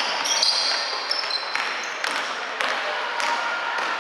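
Basketball game in play: sneakers squeaking in short high chirps on the court floor, and the ball bouncing with sharp knocks.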